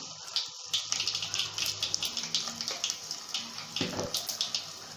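Hot oil sizzling and crackling in a pan with ginger-garlic paste and curry leaves frying in it: a steady hiss with frequent small pops.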